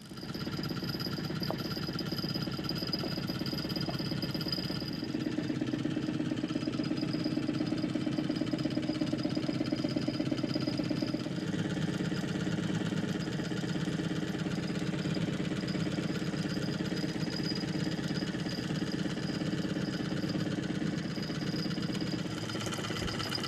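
A small boat's motor running steadily at low trolling speed, its note shifting slightly a couple of times.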